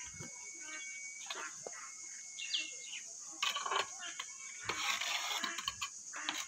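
A few short knocks and scrapes around the middle as stone mosaic tiles are pressed and worked into place on a wall. Birds chirp and voices murmur faintly in the background.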